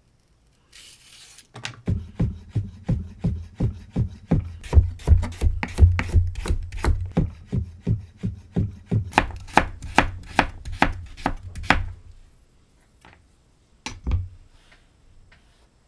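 Knife chopping a carrot on a cutting board: a steady run of sharp chops, about three a second, for some ten seconds, then two last knocks near the end.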